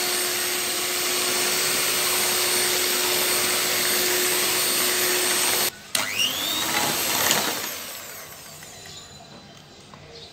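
Scarlett electric hand mixer running steadily with a constant hum, its beaters whisking raw eggs in a ceramic bowl. It cuts out abruptly after about five and a half seconds, runs again briefly with its pitch sliding, then winds down and stops about eight seconds in.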